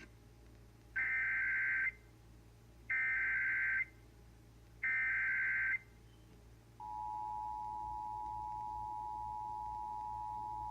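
Emergency Alert System SAME header: three bursts of warbling digital data tones, each about a second long and about a second apart. Then, about seven seconds in, the steady two-tone EAS attention signal starts, announcing the severe thunderstorm warning that follows.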